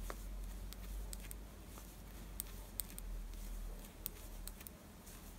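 Faint, irregular clicks of metal circular-needle tips tapping together as stitches are knitted, over a low steady hum.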